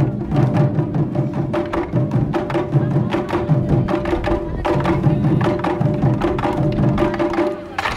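Children's taiko ensemble beating nagadō-daiko barrel drums and smaller drums with bachi sticks: a fast, dense run of strikes over a steady held note, closing with one loud final hit near the end.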